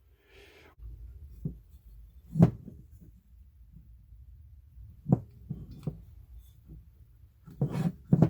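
Scattered light knocks and clicks of handwork, with the loudest about two and a half seconds in and a close cluster near the end. A wire sleeved in heat-shrink tubing is being worked through a small hole in an ECU housing.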